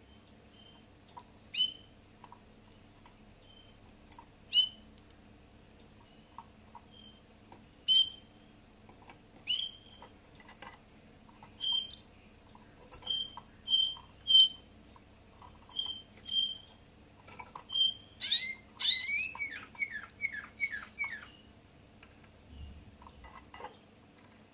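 Caged finch giving short, sharp chirps every second or two. About three-quarters of the way through comes a quicker run of about six falling notes.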